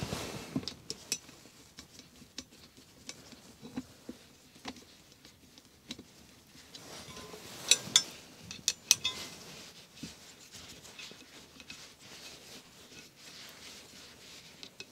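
Scattered light metallic clicks and clinks from a 5 mm hex key and the fork's collar and telescope parts being handled while the lower collar is snugged up, with a few sharper clicks about eight seconds in.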